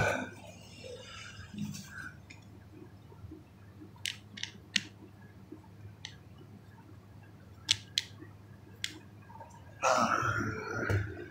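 Handling of a paper instruction manual: scattered sharp clicks and light paper rustling as the pages are touched and moved, with a louder burst of rustling and handling noise about ten seconds in.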